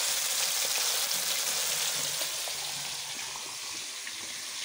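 Battered fish pieces deep-frying in hot oil in a kadhai: a steady sizzle that grows a little fainter over the last couple of seconds.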